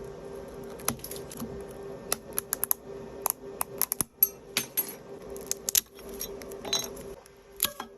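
Irregular sharp clicks and small cracks as the iPhone 8's broken back glass is worked off with tools, over a steady hum.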